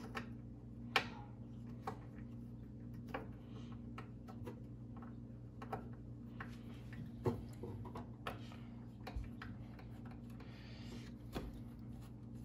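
Scattered small metallic clicks and ticks from a hand screwdriver working screws out of a benchtop thickness planer's bed, with a brief scrape a couple of seconds before the end, over a steady low hum.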